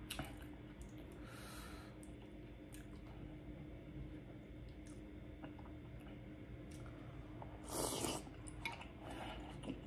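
Quiet close-up eating sounds: faint wet clicks and mouth noises, with a louder burst about eight seconds in as a sauce-coated soft-boiled egg goes into the mouth.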